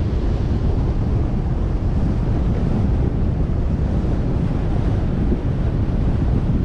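Steady wind buffeting on the microphone of a camera riding on a vehicle along a dirt road, a low, even rumble with the vehicle's running and tyre noise beneath it.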